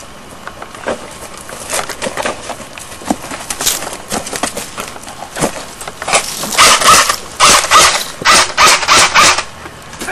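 Rapid gunfire sounds: a run of about ten short, loud shots, roughly three a second, starting about six seconds in and lasting some three seconds. Before them there are scattered rustles and small knocks.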